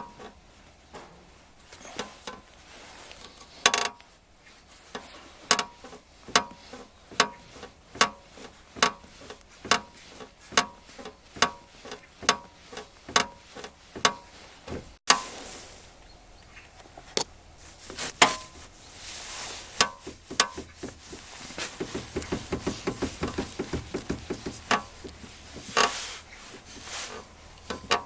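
Aftermarket seat rail under a Recaro seat creaking and squeaking in short strokes, about one and a half a second, as the seat is pushed by hand, with a faster run of creaks near the end. The rail is flexing under hand pressure, the source of the creak the owner hears when braking and accelerating.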